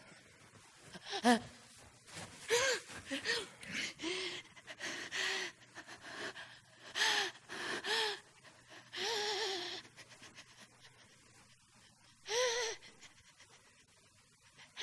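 A woman's gasps and short breathy cries, a broken string of them, turning to laughter: an overwhelmed outburst of joyful emotion.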